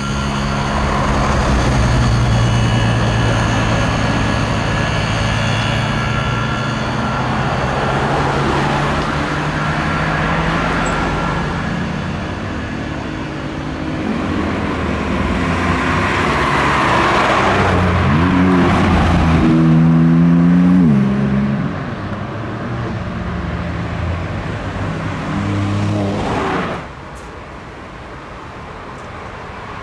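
Car engines running at low speed as cars move past, with a few quick throttle blips about two-thirds of the way through and another short burst shortly before the sound drops off near the end.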